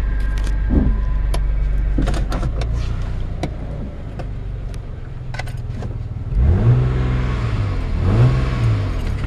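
1987 Acura Legend's 2.5-litre V6 idling, with a few light clicks over it, then revved twice, the pitch rising and falling each time. The idle is one the owner says has dropped since he flushed the radiator, which he thinks got something wet, such as water in the distributor cap.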